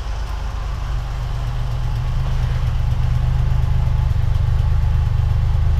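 Plymouth Duster's engine running at a low, idle-like speed as the car rolls in close. It grows louder over the first couple of seconds, then holds a steady, fast low exhaust beat.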